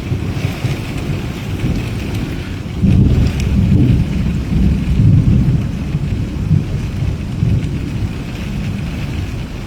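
Heavy rain pouring steadily while thunder rumbles low, the rumble swelling loudest from about three to five seconds in.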